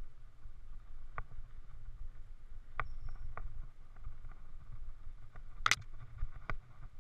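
Mountain bike ridden over a rough dirt trail, heard from a helmet camera: a steady low rumble of bumps and air on the camera, with scattered sharp knocks and rattles. The loudest knock comes about three-quarters through.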